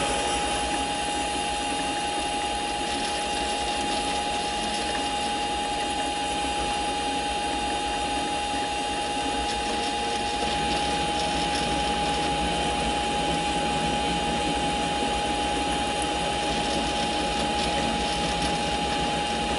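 Mini lathe running with a steady whine while a spring-mounted parting tool cuts off a 1-1/4 inch 1018 steel rod. The cutting noise grows a little stronger about halfway through.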